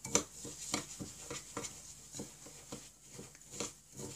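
Silver spoon stirring and scraping oat and buckwheat flakes mixed with honey and water in a small glass bowl: an irregular run of soft scrapes and light taps, about three a second.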